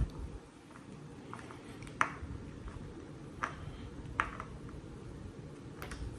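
A few sharp clicks and taps from a screwdriver and the subwoofer's isolation feet being handled. The first comes about two seconds in and three more follow over the next four seconds, over a low, steady room hum.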